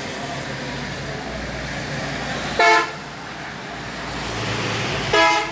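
Two short toots of a vehicle horn about two and a half seconds apart, over a steady hiss of rain and traffic on a wet road.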